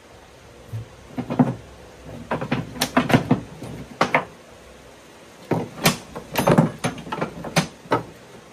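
Metal hold-down rods and a hand tool clunking and rattling in an emptied golf cart battery tray: a string of irregular knocks.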